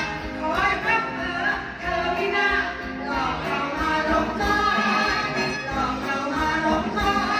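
Two women singing a song together into handheld microphones, amplified, with instrumental accompaniment.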